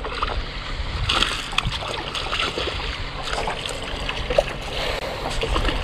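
Wind buffeting the microphone over water lapping and splashing against a small boat's hull, with scattered light knocks.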